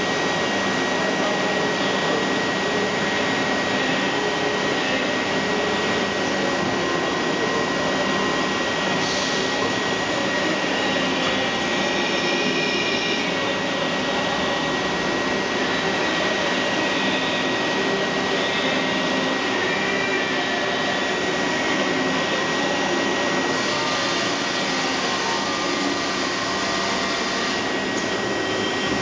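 STARVISION AC5 CNC machine running through an automatic milling-head change: a steady whirring machine noise with a constant high whine, its upper hiss shifting briefly a few times.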